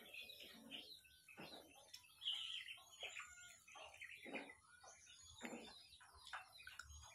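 Faint chirping and twittering of small birds, many short quick calls. A few short, soft mouth noises from eating come in between.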